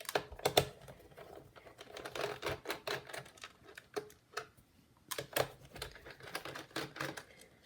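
A precision screwdriver working the screws out of the plastic underside of a Hitachi VisionBook Plus 5000 laptop: irregular light clicks and taps of the bit and the handled plastic case.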